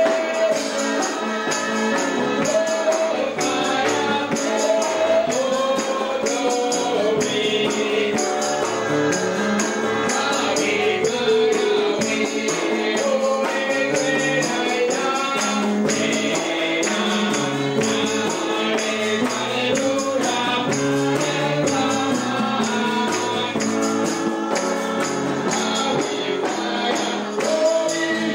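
A congregation singing a worship song together, with a tambourine and hand clapping keeping a steady beat.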